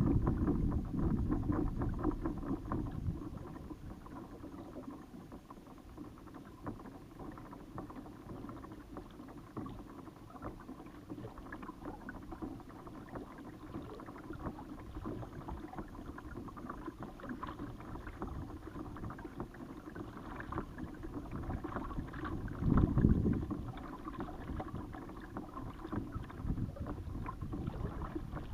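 Water lapping and splashing against a Hobie Compass kayak's hull, with many small knocks and trickles. Wind buffets the microphone near the start and once strongly about three-quarters of the way through.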